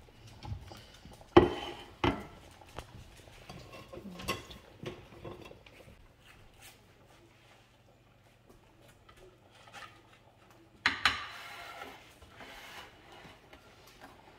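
A spatula knocking and scraping against a glass baking dish and a plate as baked chicken breasts are lifted out and served. There are a few sharp clinks in the first few seconds and a louder clatter about eleven seconds in.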